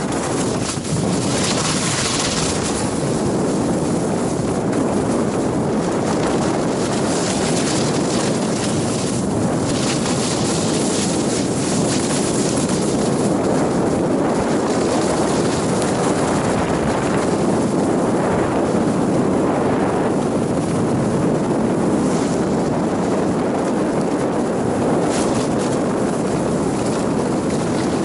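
Steady wind rush buffeting an action camera's microphone as a skier moves downhill, mixed with the hiss of skis sliding over snow.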